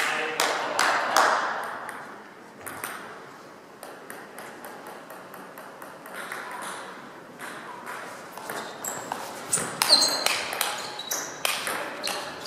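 Table tennis rally: the celluloid ball clicks sharply off the paddles and the table. There are a few scattered bounces at first, then a quicker run of louder hits from about eight seconds in.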